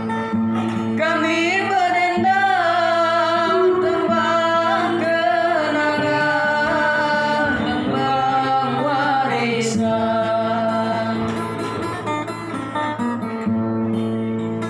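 A singer's voice carrying a Batang Hari Sembilan folk melody with wavering, ornamented notes, over a plucked acoustic guitar accompaniment; the voice comes in about a second in.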